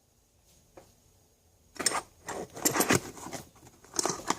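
Hand tools being handled in a tool backpack's pockets: a stretch of clinking and rustling for about two seconds, then a few sharper clicks near the end.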